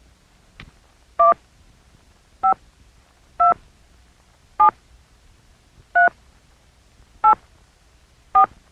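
Touch-tone desk telephone being dialed: a faint click, then seven key-press beeps about a second apart, each a short two-tone dialing beep.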